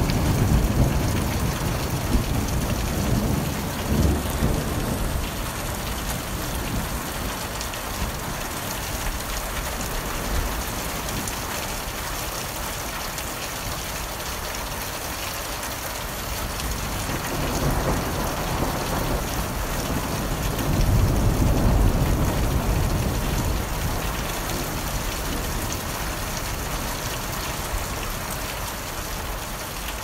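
Heavy rain falling steadily, with low rolls of thunder: one dying away at the start, a short one about four seconds in, and a longer swell from about twenty to twenty-three seconds in.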